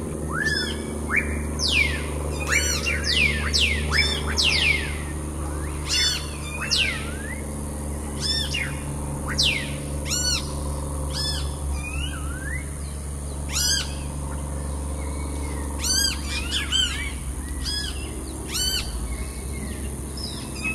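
Birds calling: repeated quick downward-sliding whistles and chirps, over a steady low hum.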